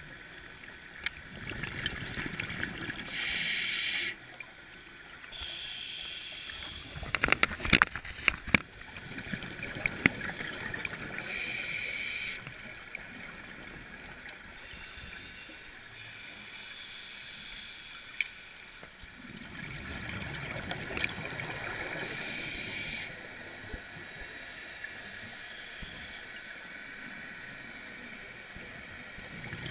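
Scuba regulator breathing heard underwater: bursts of bubbling, hissing breath about a second long, a few seconds apart, over a low rumble. A cluster of sharp clicks comes about seven to nine seconds in and is the loudest sound.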